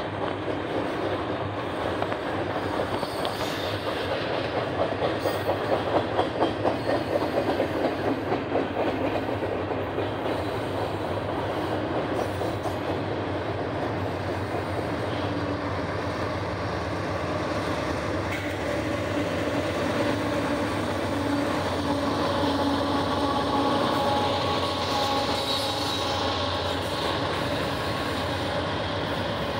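Doublestack intermodal freight trains rolling past, with steel wheels clicking over rail joints in an even rhythm that is loudest early on. In the second half a steady hum joins in as the diesel locomotives of the meeting train come by.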